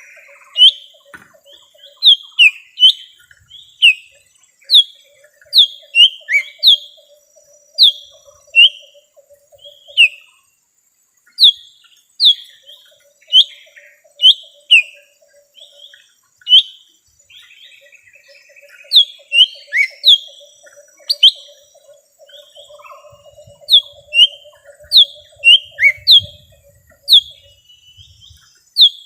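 Lesser green leafbird (cucak ijo mini) calling: a long series of sharp, falling whistled notes, often in quick pairs, with short pauses between runs. A faint buzzy trill runs beneath, and a brief rattling note comes in about two-thirds of the way through.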